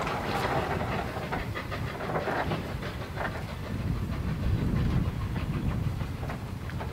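Peckett 0-4-0 saddle-tank steam locomotive rolling slowly along yard track: a steady low rumble with scattered short clanks from wheels and motion.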